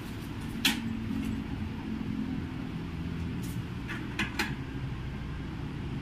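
A handful of short sharp clicks of metal dental instruments, the first the loudest and two close together near the end, over a steady low machine hum.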